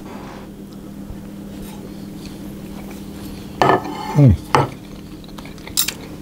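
A man eating a pancake, with a steady low hum underneath. A fork clinks on a plate at the start, and a short falling vocal sound comes about four seconds in as he tastes it.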